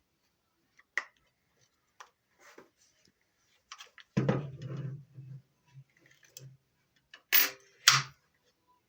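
Clicks and knocks from handling and adjusting a Ridgid cordless reciprocating saw, with a low rumbling scrape in the middle and two loud short rustling bursts near the end.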